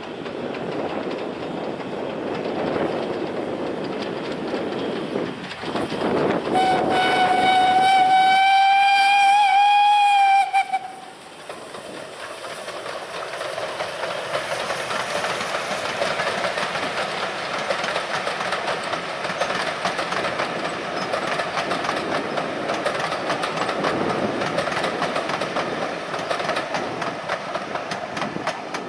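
Steam locomotive working a passenger train toward and past the listener. About six and a half seconds in it sounds its whistle, one long steady note lasting about four seconds, and after it the coaches roll past in a steady rumble with a fine rapid clicking of wheels on the rails.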